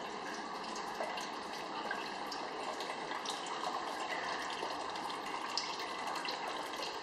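Water running steadily through a water treatment system's tanks and pipework, an even rushing hiss with a faint steady whine over it.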